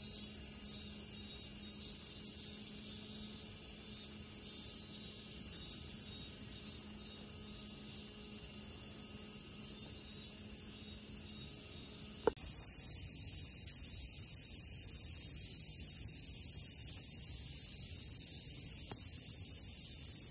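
Steady, high-pitched shrilling of a summer insect chorus. About twelve seconds in there is a click and the chorus changes, becoming louder and higher; before that a faint low hum sits under it.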